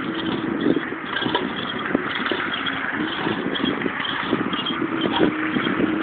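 A sign blowing in the wind: short, low creaking tones come and go irregularly over a steady rush of wind noise.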